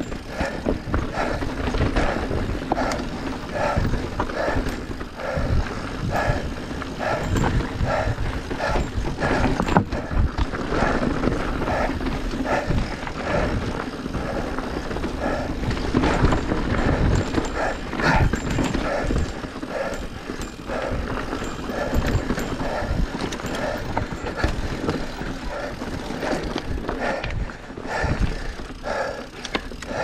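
Mountain bike riding down a rocky, gravelly singletrack: tyres crunching over loose stone, the bike rattling and knocking over rocks, and wind rumbling on the camera microphone, with a rhythmic pulsing sound about twice a second throughout.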